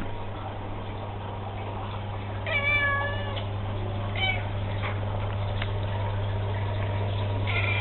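A domestic cat meows: one call of just under a second, then a shorter meow about a second later, over a steady low hum.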